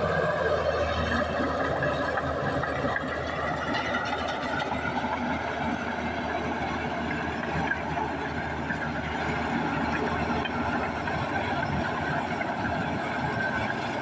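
Komatsu D61EX crawler bulldozer running steadily as its blade pushes a load of dirt and rock, with diesel engine noise and the wavering whine of the machine continuing throughout.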